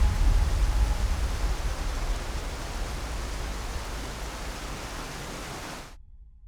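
A rushing noise with a deep rumble that sets in suddenly, fades away over about six seconds and then cuts off.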